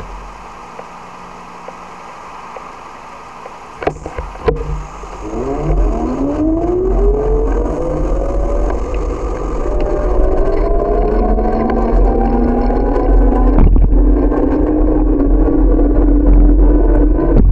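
City transit bus pulling away and accelerating: a whine that glides up in pitch, fast at first and then slowly, over about ten seconds before levelling off. A deep rumble grows louder underneath it. A few sharp clicks come just before the bus moves off.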